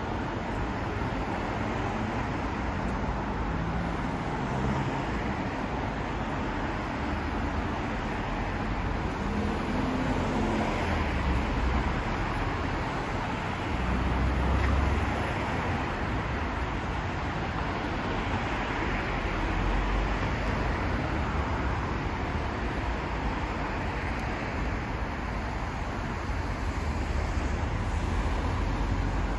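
City road traffic: cars passing over a steady wash of street noise, with a low rumble swelling as a vehicle goes by close, loudest about halfway through.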